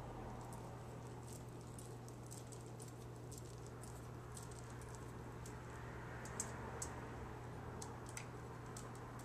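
Small, quick clicks and ticks of hands rolling sticky peanut butter cookie dough into balls, with a few louder ticks in the second half as a ball is set down on the aluminium foil sheet. A steady low hum runs underneath.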